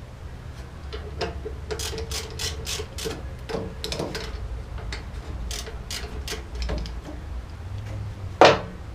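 Ratchet wrench clicking as it turns a brake caliper pad pin, a steady run of sharp clicks about three or four a second, then one loud clack near the end.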